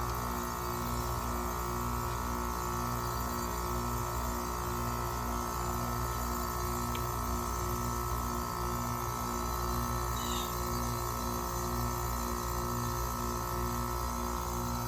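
Electronic background music with a steady, evenly repeating low pulse over a sustained hum.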